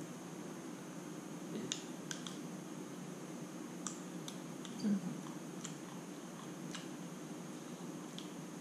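Small scattered clicks and snaps of fresh lotus seeds being peeled by fingers and bitten, about eight in all, the loudest a short knock about five seconds in, over a steady room hum and faint high whine.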